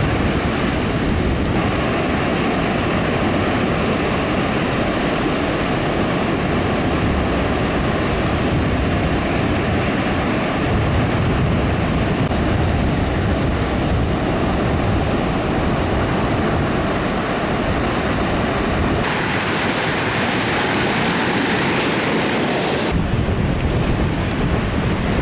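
Steady, loud rushing of strong wind buffeting the microphone, mixed with surf. About 19 s in the sound turns to a brighter hiss for about four seconds, then returns to the fuller rush.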